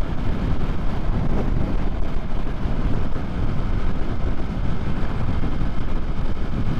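Yamaha MT-03 motorcycle cruising steadily at about 55 mph: a constant rush of wind on the microphone mixed with engine and road noise.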